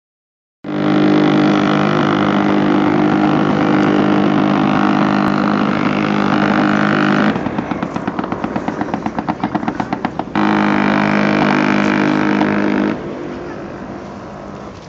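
A loud, steady mechanical drone with a low hum and a higher whine. For about three seconds in the middle it breaks into a rapid pulsing of about six beats a second, then the steady drone returns and fades near the end.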